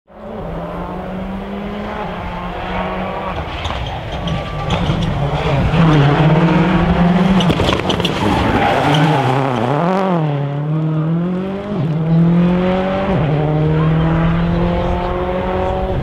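Rally car engine driven hard on a tarmac stage: its pitch climbs through the gears, swings rapidly up and down about ten seconds in, and falls sharply near the thirteenth second before climbing again.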